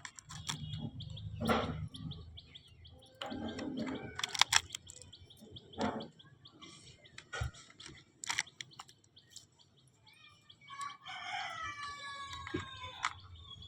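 Small plastic items clicking and tapping as they are handled. About eleven seconds in there is a drawn-out call with several pitched tones.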